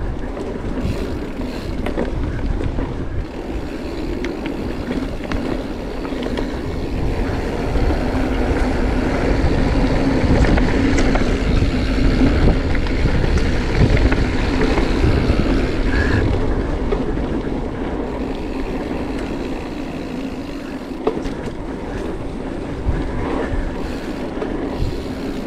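Marin Mount Vision 8 mountain bike riding fast down a dirt singletrack: a continuous rumble of knobby tyres rolling over the trail, with the bike rattling and wind on the microphone. The rumble grows louder for several seconds in the middle.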